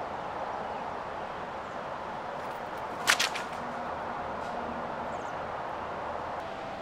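Steady outdoor background hiss, with one sharp crack, doubled, about three seconds in.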